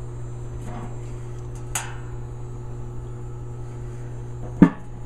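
A steady low mechanical hum, with one short knock about four and a half seconds in.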